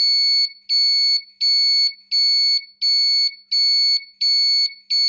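Electronic motorcycle turn-signal flasher with a built-in buzzer, beeping in time with its flashing bulb. The steady high-pitched beeps come about one and a half per second, showing the repaired flasher is cycling properly.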